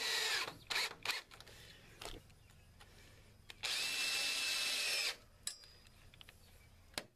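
Makita 18V cordless drill driving 2-inch screws through a wooden cover board into the rail. A run ends about half a second in, followed by a few short trigger bursts. The drill then runs again steadily with a level whine for about a second and a half near the middle, and there is a sharp click near the end.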